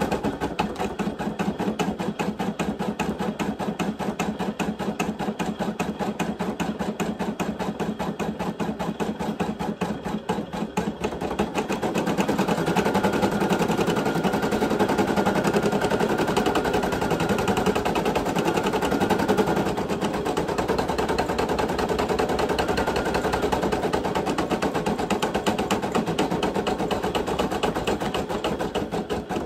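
Brother PE800 embroidery machine stitching lettering into a hooped t-shirt, the needle going up and down in a fast, steady rapid-fire rhythm. It gets louder for about eight seconds in the middle, then settles back.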